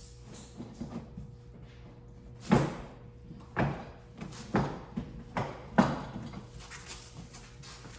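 Plastic front bumper cover of an Infiniti G37 knocking and thumping about five times, roughly a second apart, as it is tugged and wiggled loose from its retaining clips.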